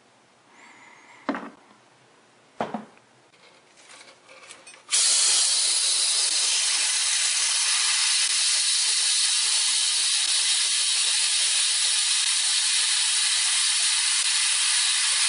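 Harbor Freight pneumatic brake fluid bleeder running on compressed air: a loud, steady hiss that starts suddenly about five seconds in, as the air-driven vacuum draws brake fluid out through the caliper's bleeder screw. A couple of short knocks come before it.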